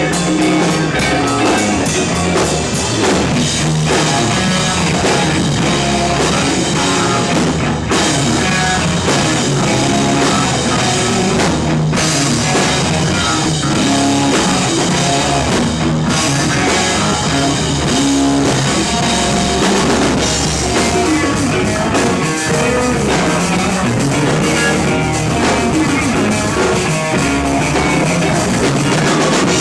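Rock band playing live: drum kit, guitar and bass in a loud, steady instrumental stretch.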